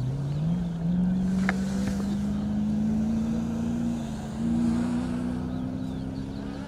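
Rally jeep engine running at high revs as it races, its pitch climbing quickly in the first second and then holding high. About four seconds in the note dips briefly and steps back up.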